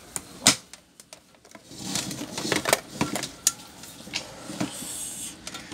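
Light clicks and taps of handling: multimeter test probes touching the metal terminals and wiring inside a rice cooker base. One sharper click comes about half a second in, then a run of smaller taps.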